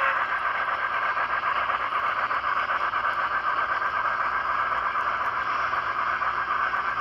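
N-scale model train running on its track: a steady running noise from the wheels and motor, with fast, fine clicking throughout.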